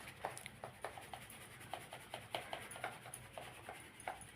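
Faint, irregular scratching and light ticks of flour being sifted by hand through a mesh sieve. It is rice flour mixed with ground roasted-gram masala, rubbed and shaken through the mesh.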